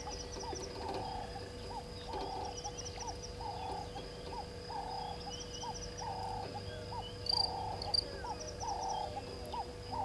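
Animal calls repeating about once a second, over a steady high insect trill, with two short high chirps near the end.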